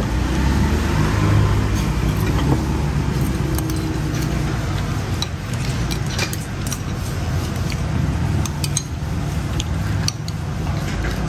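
Chopsticks and spoons clinking now and then against ceramic noodle bowls, over a steady low rumble.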